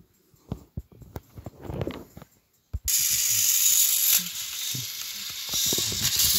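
Scattered clicks of plastic toys being handled, then about three seconds in battery-powered motorized toy train engines switch on and run with a steady, loud gear whir and hiss, with clicking from the wheels on plastic track.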